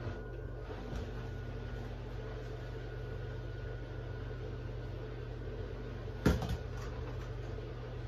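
Steady low electrical hum of a kitchen appliance running. About six seconds in comes a sharp knock with a brief clatter, a utensil striking plastic kitchenware as chocolate is spooned into a mould.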